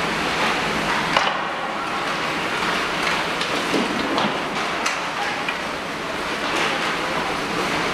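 Many hockey skates scraping and carving across rink ice in a steady hiss, with a few sharp clacks of sticks on pucks and ice.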